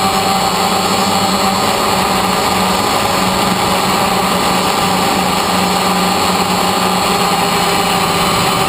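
DJI Phantom quadcopter's electric motors and propellers running in flight, a steady loud buzzing drone with a few fixed pitches, heard from the camera riding on the drone.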